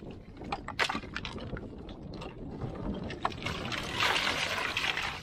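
Slate stones knocking and clinking as a stacked slate wall is pulled apart by hand. About three and a half seconds in, a louder rush of loose slate and grit pours down from the wall.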